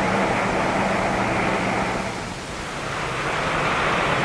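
Lockheed Hercules's four turboprop engines running: a steady drone with a low hum. The sound dips about two seconds in and then builds back up.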